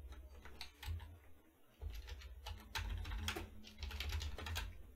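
Typing on a computer keyboard: quick runs of key clicks with short pauses between them, over a low rumble.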